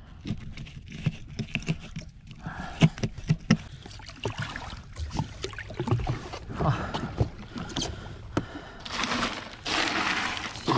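Water slapping and gurgling against the hull of a drifting Sea-Doo Fish Pro personal watercraft, with scattered sharp knocks and scrapes. A louder stretch of rushing noise comes in near the end.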